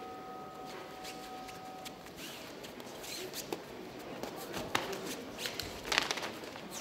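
The ring bell that opened round one rings out and fades over the first two seconds, then scattered light knocks and squeaks of bare feet stepping and shuffling on the ring canvas as the fighters move.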